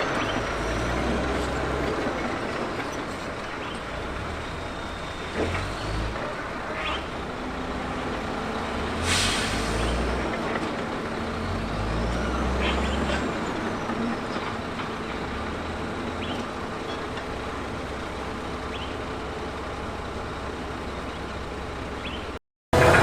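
Heavy earthmoving machine's diesel engine running steadily under work, with occasional metallic knocks and a sharp hiss about nine seconds in.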